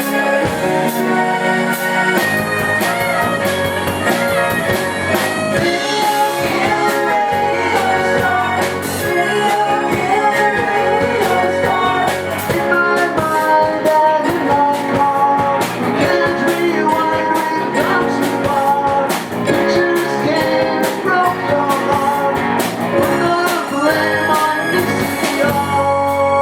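Live rock band playing loudly, with drums, guitar and keyboards.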